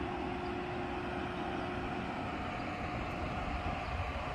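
Steady mechanical hum over a low rumble, with two steady tones in it; the lower tone stops near the end.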